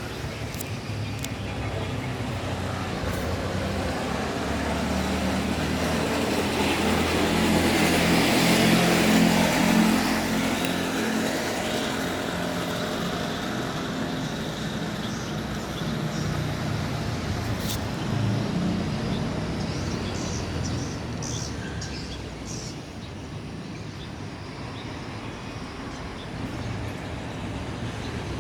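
A Boeing 737-800 jet airliner's CFM56 engines droning overhead as it passes. The sound swells to its loudest about eight to ten seconds in, then slowly fades away.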